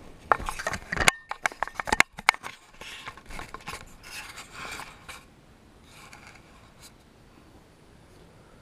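Fingers handling a small action camera right at its microphone: a rapid run of sharp knocks and clicks as it is picked up, then rubbing and rustling against fabric as it is set down on a fluffy blanket, dying down about five seconds in.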